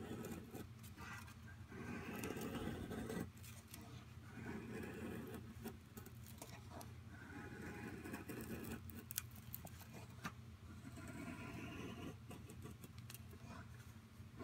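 Becker BK2 knife blade shaving thin curls down a wooden stick to make a feather stick: a run of drawn-out scraping strokes, each about a second long.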